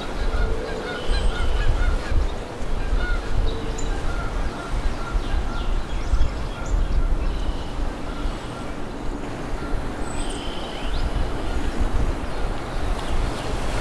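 Birds calling in short, repeated notes, mostly in the first half, over a steady low rumble.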